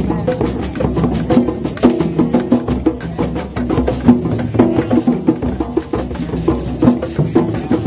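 Background music: an instrumental track with pitched notes over a quick, steady beat of knocking percussion.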